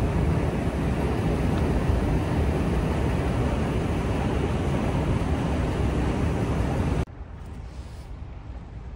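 Loud steady rumbling noise, heavy in the lows, riding down a long escalator in an underground station shaft. About seven seconds in it drops suddenly to a much quieter, even hum.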